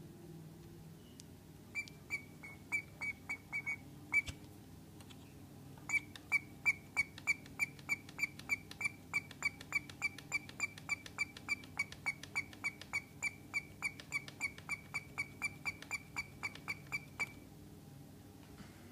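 Carburetor primer bulb being pumped by thumb, each press giving a short high squeak: a short burst of about eight, a pause, then a long steady run at about three a second that stops near the end. The pumping draws fuel into the bulb to prime the carburetor.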